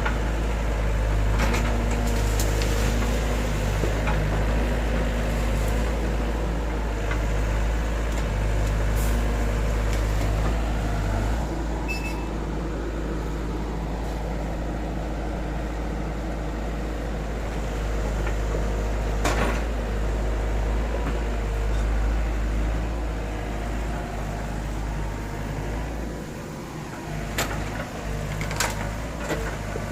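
Hydraulic excavator's diesel engine running steadily, its note swelling and easing as the machine works, with a few sharp knocks scattered through.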